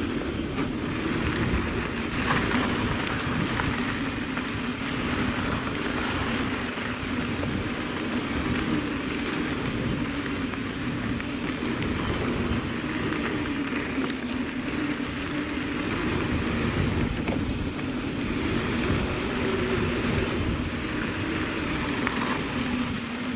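Mountain bike riding fast down a rough dirt trail: steady wind rush and rumble on the bike-mounted or body-mounted camera microphone, with the tyres rolling over dirt and occasional small rattles.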